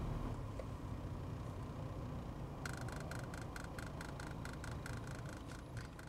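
Low steady hum with a quick, uneven run of light clicks, several a second, starting about two and a half seconds in.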